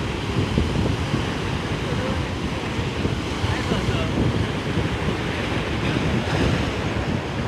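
Ocean surf washing on the shore under strong wind buffeting the microphone, a steady low rumbling rush.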